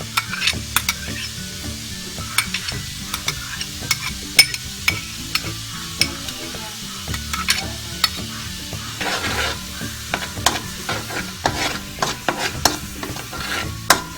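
Garlic sizzling in melted butter in a frying pan, with a utensil stirring and clicking against the pan again and again.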